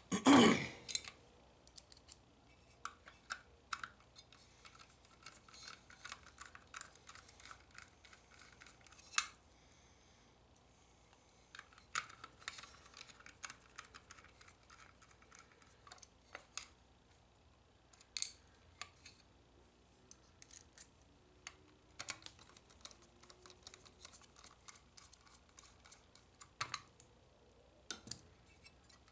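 Small metal clicks and ticks of a makeshift bit driver turning Torx screws out of a vending machine's rotor gearbox housing, with runs of quick ticking and a louder knock right at the start.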